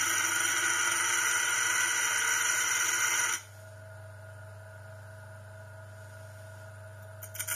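Homemade bench grinder running with a steady motor hum, and a loud grinding with a high ringing tone for the first three seconds or so as work is held to the wheel; the grinding stops, leaving just the motor hum, and starts again near the end.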